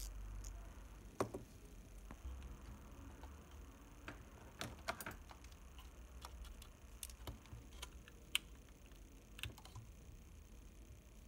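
Scattered faint clicks and taps of small metal parts and a precision screwdriver being handled while a Horizon 202 panoramic camera's shutter mechanism is taken apart. The clicks are irregular, with the sharpest about a second in and near the middle of the last third.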